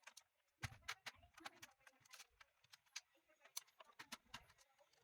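Faint, irregular small clicks and taps of a screwdriver and hands working screws out of a plastic instrument cluster housing, with a soft knock about a second in and another near the end.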